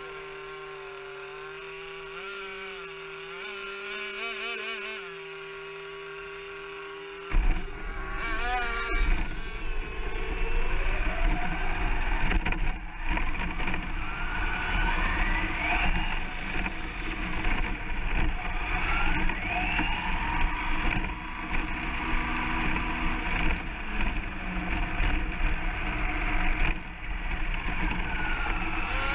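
Onboard sound from a radio-controlled short course truck. A steady hum for the first few seconds, then about seven seconds in the truck sets off: a loud, rough rumble of its tyres on cracked tarmac, with motor whines rising and falling as the RC cars speed up and slow down.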